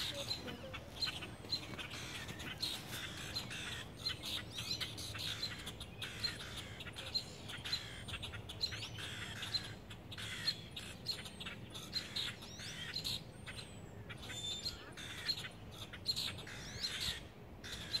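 Small birds chirping: many short, sharp chirps repeating all the way through, with a few thin, higher whistled notes that slide in pitch.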